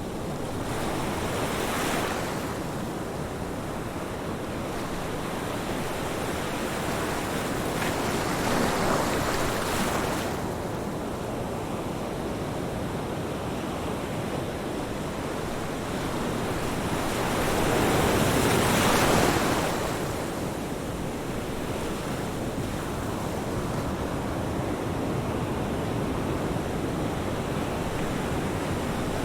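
Ocean surf: a continuous wash of waves that swells louder three times, about two seconds in, around nine seconds in, and most strongly at about nineteen seconds.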